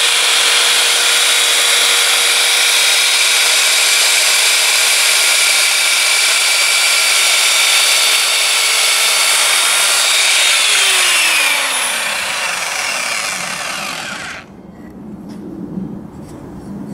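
Evolution R210CMS mitre saw running at full speed with a high motor whine as its blade cuts through a piece of MDF. About ten seconds in the motor is released and its whine falls as the blade winds down. The sound stops abruptly a few seconds later, and light handling knocks follow.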